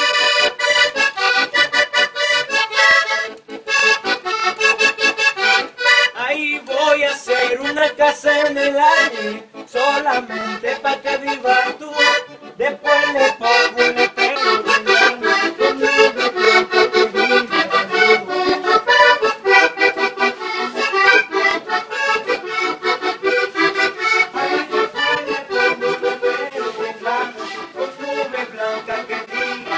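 Diatonic button accordions playing a lively vallenato tune, with quick runs of notes over chords and a couple of short breaks in the first ten seconds.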